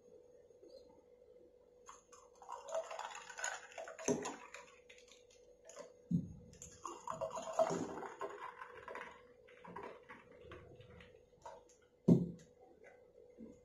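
Milk sharbat poured into two glass tumblers one after the other, each pour lasting a couple of seconds. There are a few knocks of a vessel on the table, the sharpest near the end, over a faint steady hum.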